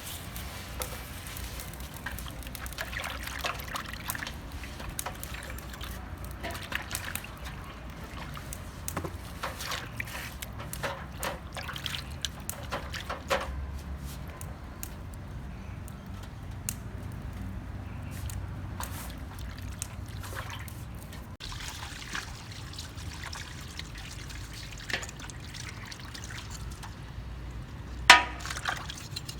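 Water trickling and pouring, with scattered small clicks and scrapes throughout and one sharp knock near the end.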